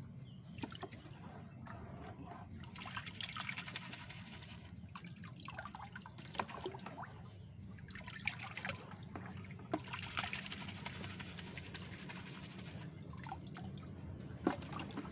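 Water sloshing and splashing in several short spells as a small fine-mesh hand net is swept through a shallow tank of water, with drips and trickles running off the net.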